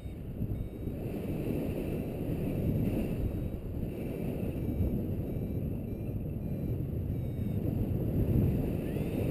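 Airflow from paraglider flight buffeting the camera's microphone: a steady low rush that swells and eases.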